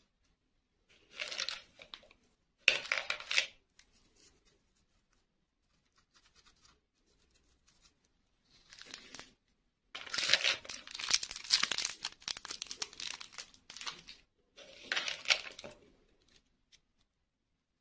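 Plastic packaging being crinkled and torn open by hand, in several short bursts with the longest run in the middle.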